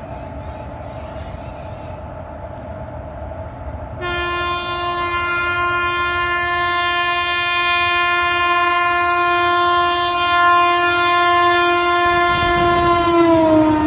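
Train running with a steady rumble, then about four seconds in an Indian Railways locomotive horn sounds one long, loud blast lasting about nine seconds. The horn's pitch falls near the end.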